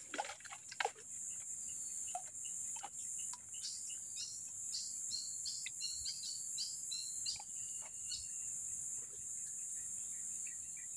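Steady high-pitched drone of insects, with a bird calling in a quick series of short chirps through the middle and another run of short chirps starting near the end. A few faint clicks come in the first second.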